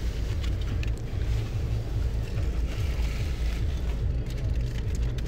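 Steady low rumble of a car's engine and road noise heard from inside the cabin, with a few faint clicks.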